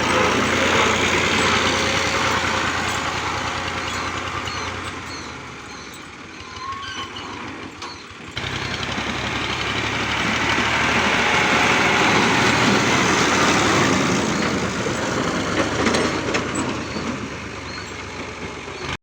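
Fiat 480 tractor's diesel engine running steadily under load while ploughing. It grows louder and quieter, with an abrupt cut about eight seconds in, then swells again and eases off near the end.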